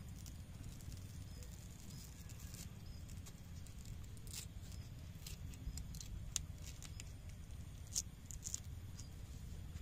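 Fresh banana leaf crinkling, with scattered short sharp clicks as it is folded into a parcel and pierced with a thin bamboo skewer, over a steady low rumble.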